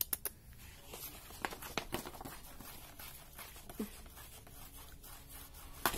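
Faint scattered clicks and soft rustling, a handful of light ticks in the first two seconds, then quieter.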